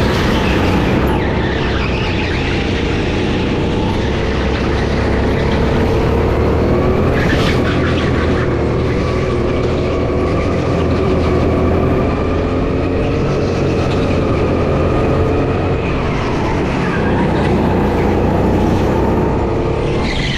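Racing go-kart engine running hard, its pitch rising and falling over several seconds as it accelerates and eases off.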